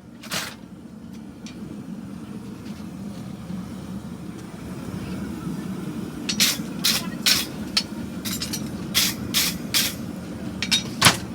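Hammer blows on steel at the anvil as the inside heel of a hand-made Shire horse shoe is forged: one blow near the start, then two quick runs of about four sharp blows around six and nine seconds in, and one more near the end. Under them a steady low rumble grows louder.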